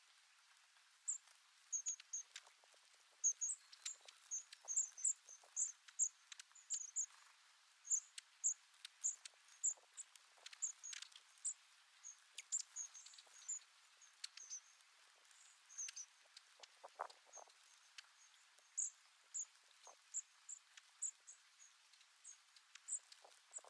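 A flock of long-tailed tits calling: many short, thin, very high-pitched notes, often several a second, with scattered faint taps and rustles.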